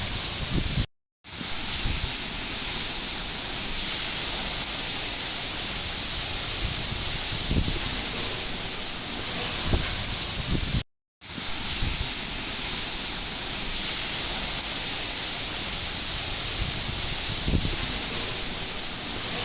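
Steady heavy rain, a dense hiss strongest in the high range with a few soft low thuds, cutting out to silence for a split second twice: about a second in and again near eleven seconds.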